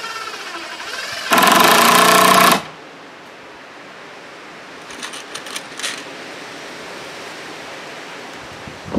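Cordless drill driving a screw into the wooden porch railing: the motor runs at low speed, then at full speed for just over a second about a second in, and stops.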